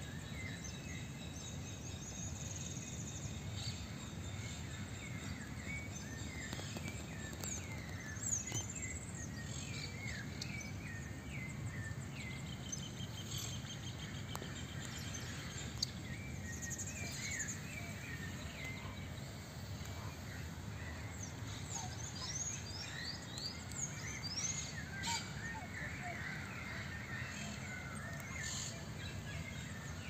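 Outdoor ambience of many small birds chirping and calling in short, quick notes throughout, over a steady low rumble, with a couple of brief sharp clicks about a third and halfway in.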